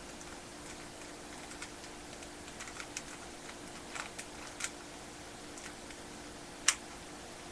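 Plastic Rubik's Cube layers being turned by hand: scattered light clicks, with one sharp, louder click near the end, over a faint steady hum.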